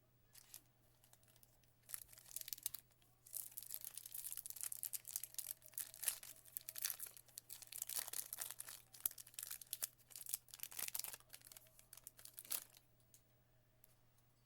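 A 2025 Panini Prizm baseball pack's wrapper being torn open and crinkled by hand, in irregular crackling spurts lasting about ten seconds.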